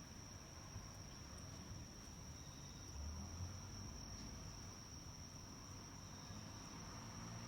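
Crickets trilling in one steady, continuous high-pitched tone on a summer night, with a faint low rumble underneath.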